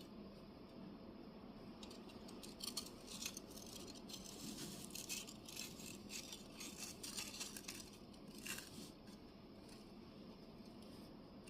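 Clay weaving tablets clicking and rattling against one another as the pack of cards is turned, a run of quick light clacks from about two seconds in until about nine seconds in, over a faint steady background.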